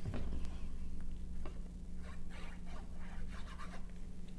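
Faint rustling and rubbing of patterned cardstock being handled and pressed into place, a few short scrapes in the middle, over a steady low hum.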